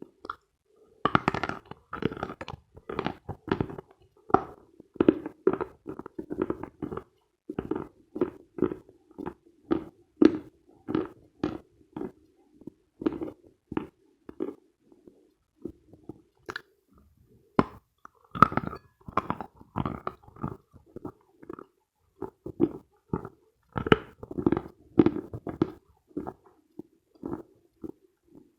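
Mouth chewing Khrapovsky chalk close to the microphone: crisp crunching chews at about two a second, with a couple of short pauses partway through.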